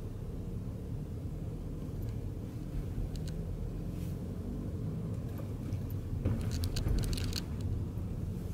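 Car driving on the road, heard from inside the cabin: a steady low rumble of engine and road noise, with a short run of clicks and rattles about seven seconds in.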